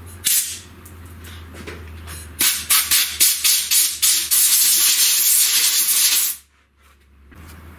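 Compressed-air blow gun blowing swarf off a milled workpiece in the vise. A short puff comes first, then a string of quick bursts runs into one long hiss of a few seconds that cuts off suddenly.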